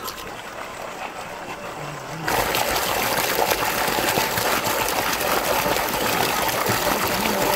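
Quieter running water, then about two seconds in water gushing strongly and steadily out of a pipe.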